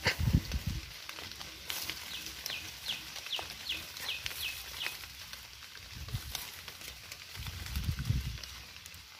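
Rustling and low bumps from hands handling termite mushrooms among wet leaves and stems, loudest at the start and again near the end. In the middle a bird calls a quick run of about eight short, high, falling notes.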